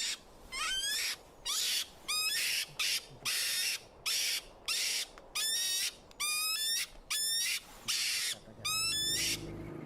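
An animal's repeated calls, about one a second: short rising whistled cries alternating with harsh, hissing screeches.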